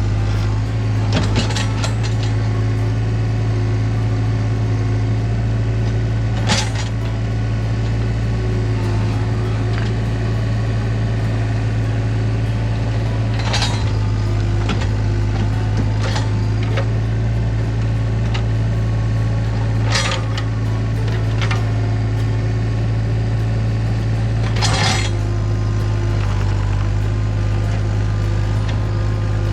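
Engine of a small earthmoving machine running steadily under work, with a sharp metallic clank every few seconds.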